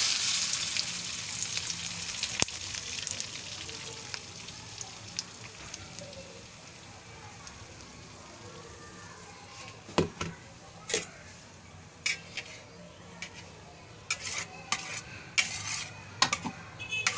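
Chopped onion, tomato and malunggay leaves sizzling in hot oil in a wok, loud at first and fading over several seconds. Later come short clicks and scrapes of a utensil against the pan.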